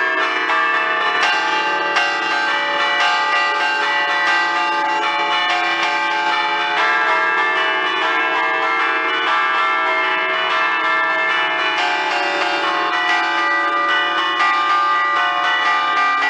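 A ring of five Ambrosian church bells in D, cast by Giorgio Pruneri in 1875, chimed by hand in a festive allegrezza. The bells hang still while cords pull their clappers. Strikes follow one another quickly and without pause, the tones ringing over one another, loud and close in the belfry.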